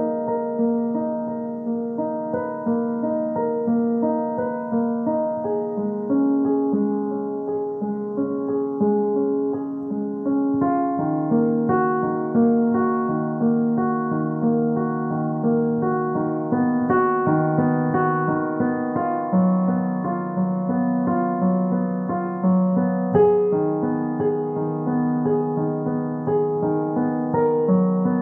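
Piano music, notes played in a steady, unbroken flow.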